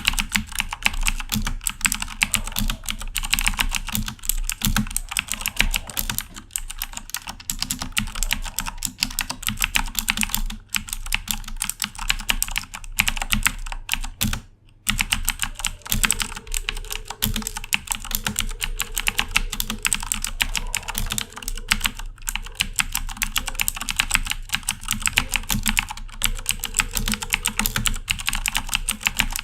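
Fast, continuous typing on a Corsair K70 mechanical keyboard with clicky Cherry MX Blue switches, a dense stream of sharp key clicks with one brief pause about halfway through.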